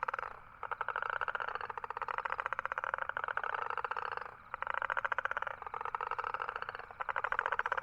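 Toads giving long, rapid, pulsing trills, with two short breaks between them.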